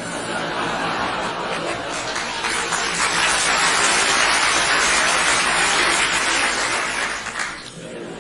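Crowd laughter swelling from a murmur to a loud burst of many people laughing together, then dying down near the end.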